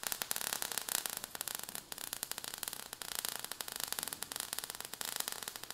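Sound effect of sparks crackling: a dense, rapid, irregular crackle over a steady hiss.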